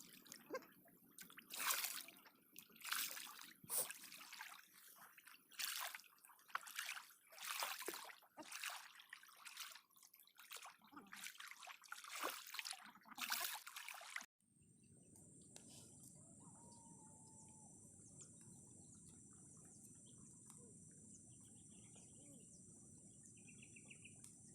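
Floodwater splashing and sloshing in repeated irregular bursts, about one a second. About 14 seconds in it cuts off suddenly to steady outdoor ambience: a constant high-pitched drone over a low hum, with a brief bird call.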